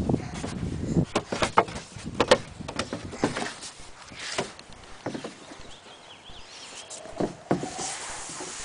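Irregular knocks and thumps on the wooden deck of a children's play set, from a toddler's hands and knees crawling across the boards, thickest in the first half. A soft hiss follows near the end.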